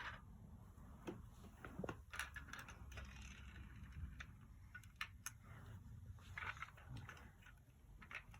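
A quiet room with faint, scattered light clicks and brief rustles.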